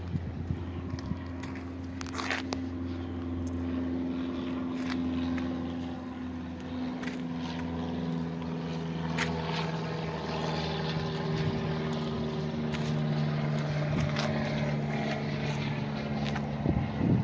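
1967 Ford Mustang's 200 cubic-inch straight-six idling steadily through headers and dual exhaust, with a few light clicks over the low engine drone.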